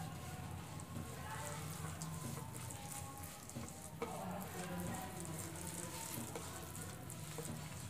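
Fingers mixing a damp spice paste of gram flour and yogurt on a ceramic plate: soft, crackly squishing and scraping, with one small sharp click about four seconds in.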